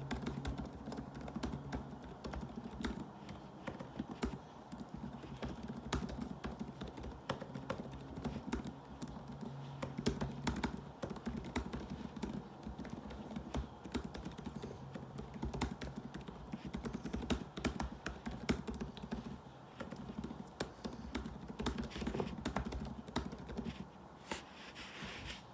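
Fast, continuous typing on a laptop keyboard: a dense, uneven stream of quick key clicks that stops shortly before the end.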